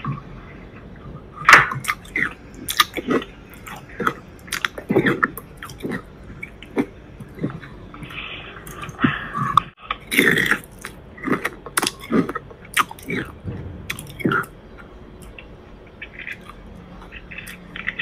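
Irregular wet clicks and crackles of mouth noises right up against a condenser microphone, thickest through the middle and thinning out near the end.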